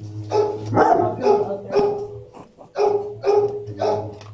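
Dog barking repeatedly, about seven sharp barks mostly in quick pairs, with a short pause near the middle, over a steady low hum.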